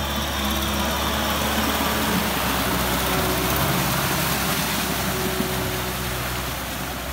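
Kubota M6040SU tractor's diesel engine running steadily, with the churning of its rotary tiller working wet paddy mud.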